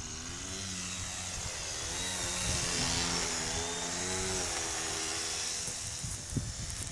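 Radio-controlled model biplane's motor and propeller buzzing as it is launched and flies past close by, loudest about three seconds in, the pitch wavering as it climbs away.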